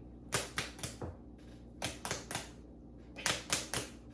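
Sharp taps in three quick groups of three or four, about four taps a second, like tapping on a hard surface.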